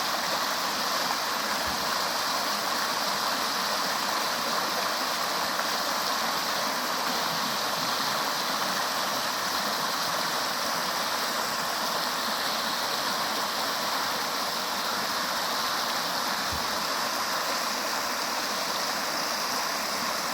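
River water rushing and gurgling over its bed in a steady, unbroken flow.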